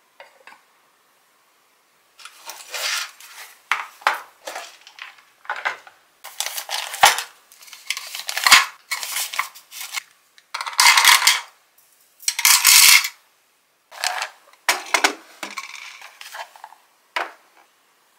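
Plastic bag clips, metal clips and other small items clattering and clicking as they are handled and dropped into clear acrylic organizer boxes: a quick run of rattles with several sharp clicks.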